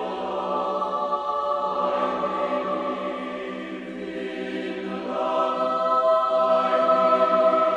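Large mixed choir of men and women singing held chords, swelling louder about two-thirds of the way through.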